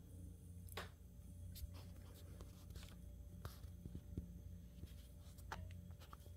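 Quiet room tone: a low steady hum with a few faint, scratchy rustles and soft clicks scattered through it.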